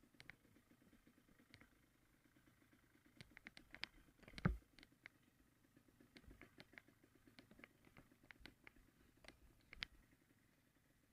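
Faint engine running with a fine, fast pulsing hum, under scattered sharp clicks and one louder thump about four and a half seconds in.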